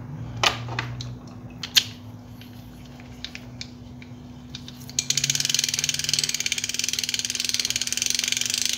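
Escualo fishing reel, just reassembled and greased, being cranked by its handle. A few sharp knocks of the reel being handled come first; about halfway through, a rapid, steady ratchet clicking starts as the handle turns.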